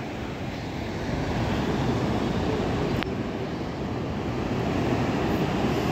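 Sea surf breaking and washing up the beach, heard as a steady low rumble with wind buffeting the microphone.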